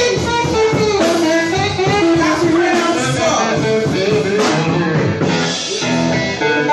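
Live blues band playing, with guitar, drums and a singing voice.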